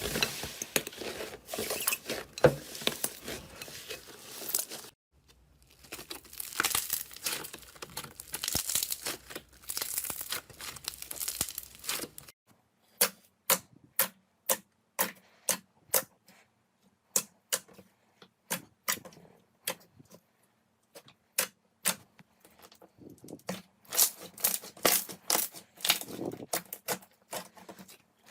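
Slime being stretched and squished, with dense sticky crackling. In the middle it turns to separate sharp pops, about one or two a second, before the crackling comes back near the end.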